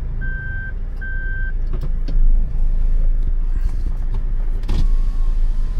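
A reversing beeper sounds two more steady, high single-pitch beeps about a second apart, then stops. Under it is the low, steady running of a vehicle heard from inside a car's cabin, with a single knock about two seconds in.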